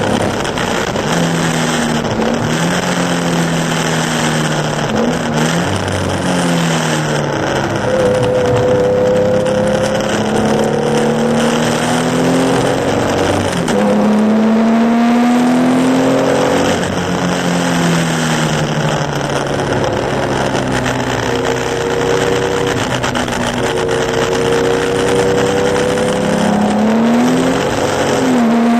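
Classic Porsche 911 2.0's air-cooled flat-six engine at racing speed on a soaked track. Its pitch climbs through the gears and falls back at each shift and on slowing, over a steady hiss of water spray from the tyres.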